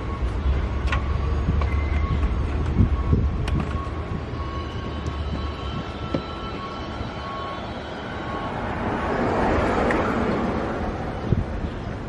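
Low rumble of a passing vehicle that dies away about six seconds in, followed by a rising and falling whoosh of another passing vehicle near the end, with a few light clicks.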